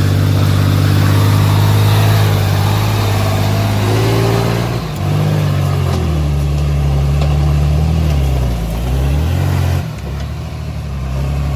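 Engine of a heavy earthmoving machine running, its pitch wavering down and back up under changing load, then dropping to a lower, steadier note near the end.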